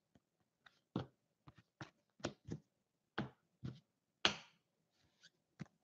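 Light, scattered taps and clicks of trading cards being handled and set down on a table, about ten separate ticks over a few seconds, one a little louder near the end.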